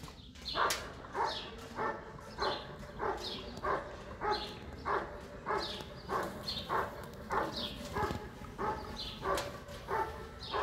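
German Shepherd Dog barking steadily and rhythmically, about one bark every 0.6 seconds: the continuous guarding bark at the helper in IGP protection work.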